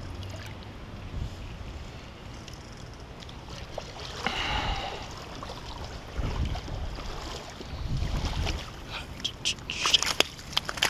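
A hooked common carp thrashing and splashing in shallow water under steady wind rumble on the microphone, with a run of sharp clicks and knocks near the end.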